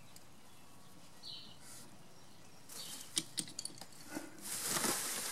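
Plastic packing bags crinkling and rustling as parts are handled in a cardboard box, with a sharp click about three seconds in and the rustling getting louder near the end. A bird chirps once, faintly, about a second in.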